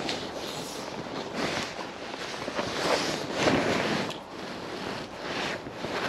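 River water rushing, with irregular surges of wind buffeting the microphone.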